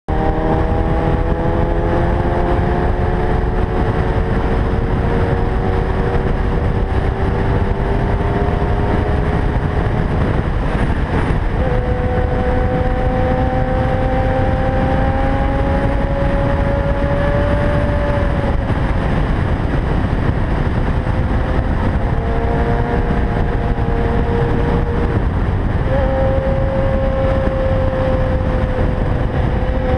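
Heavy wind rush on a helmet-mounted camera at highway speed, over a Kawasaki ZX-10R's inline-four engine pulling in gear. The engine note climbs slowly in pitch, fades out a few times and then picks up again.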